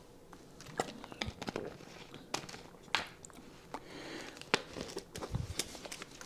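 Thin plastic water bottle crinkling in the hand, with scattered small clicks and crackles as its cap is screwed back on.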